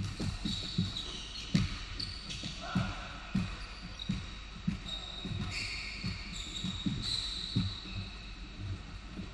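A basketball being dribbled on a hardwood gym floor, thudding about twice a second, with a sharper thud about a second and a half in. Sneakers squeak on the boards several times.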